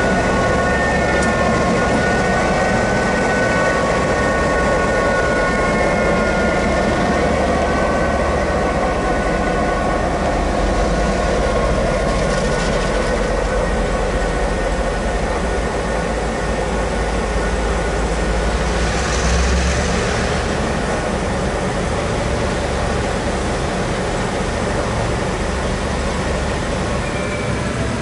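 EMD G12 diesel locomotive's V12 two-stroke engine running as it moves at low speed. A steady low drone carries a whine that drifts a little in pitch and fades after about ten seconds.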